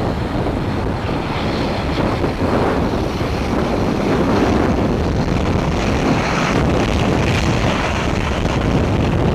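Typhoon storm wind buffeting the microphone in a continuous, rumbling roar of gusts. A higher hiss builds beneath it in the second half.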